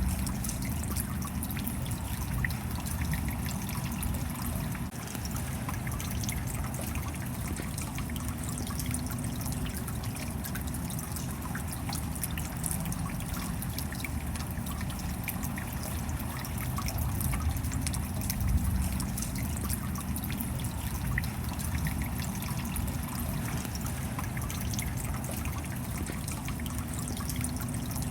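Rain falling steadily, a continuous wash of water with a dense scatter of small drop ticks.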